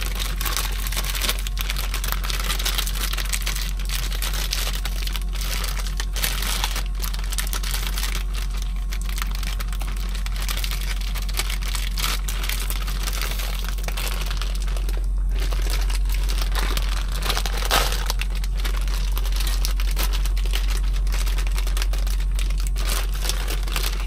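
Broccoli sizzling and crackling in a hot pan: a steady, dense sizzle that runs on without a break, over a steady low hum.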